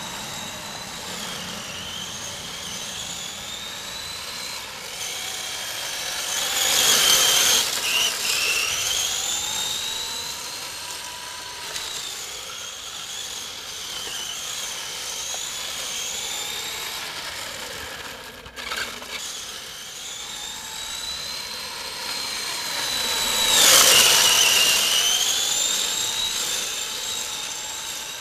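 1/10 scale HPI drift RC car's motor whining as it is driven about, rising and falling in pitch with speed. It passes close twice, about seven seconds in and near the end, growing loud with a swoop down in pitch as it goes by.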